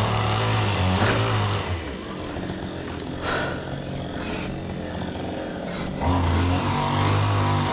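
Chainsaw engine running, louder at the start and again from about six seconds in, quieter in between.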